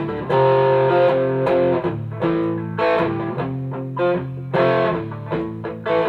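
Electric guitar played through a Mosky Golden Horse overdrive pedal, a Klon Centaur clone, pushing a Fender Blues Deluxe tube amp into overdrive. Struck chords and short riffs: a chord near the start rings for about a second and a half, then shorter chords and notes follow roughly every half second, with another longer chord ringing a little past the middle.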